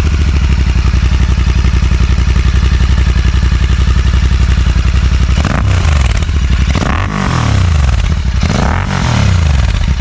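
Royal Enfield 650 parallel-twin running through an AEW 103 exhaust with its dB killers fitted: idling steadily, then revved three times from about halfway in, the note climbing and falling back with each blip.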